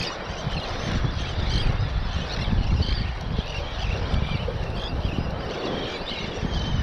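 A flock of birds calling over and over in short high chirps above a steady, gusting rumble of wind.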